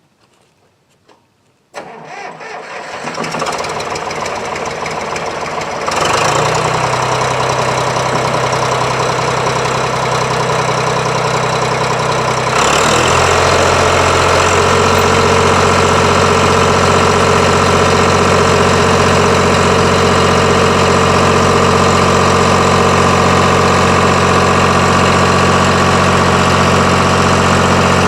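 Front loader's engine starting about two seconds in, building up over a few seconds, then running steadily; its note steps up once a few seconds later and again about halfway through.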